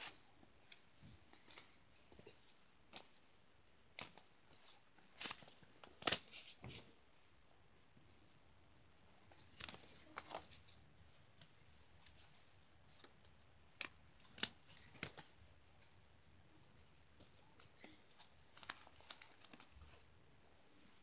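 Faint paper rustling and crinkling with small clicks, as paper banknotes are handled and leafed through; it comes and goes in short spells, a little louder about six seconds in and around fourteen seconds.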